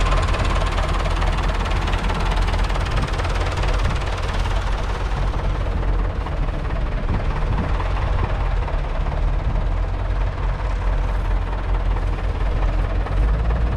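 A David Brown 996 tractor's 3.6-litre four-cylinder diesel engine idling steadily.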